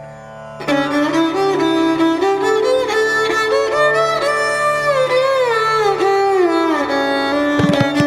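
Indian-style instrumental music: a bowed-string melody sliding between notes over a steady drone, with drum strokes coming in near the end.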